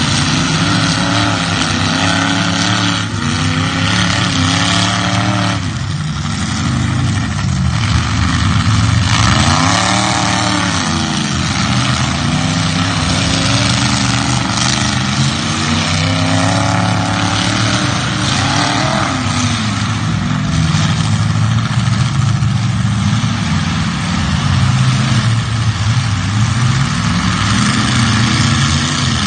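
Several demolition derby car engines running at once, revving up and down repeatedly.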